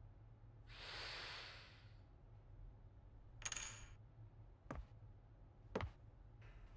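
Quiet animation foley: a soft breathy sigh, then a pencil set down on a desk, with a short scrape and two sharp taps about a second apart.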